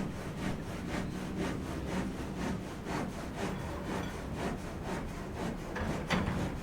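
Rhythmic rasping strokes, about two a second, with a stronger stroke about six seconds in.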